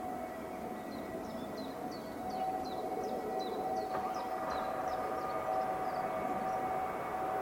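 On-site two-tone personnel alarm sounding in a siren test: two steady tones close together in pitch, held without a break, a little louder from about two seconds in, with a higher tone joining partway through.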